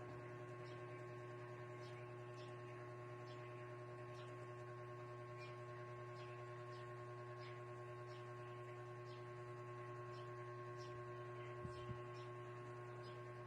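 Faint steady electrical hum made of several held tones, with light faint ticks about every half second to second.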